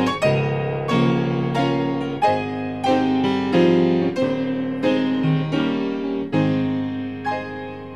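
Grand piano played solo: full chords struck about twice a second, each left to ring into the next.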